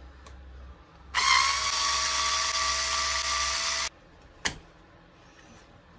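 Cordless electric screwdriver with a hex bit running steadily for about three seconds as it backs out a sway bar screw on an RC truck, then stopping suddenly. A single click comes about half a second later.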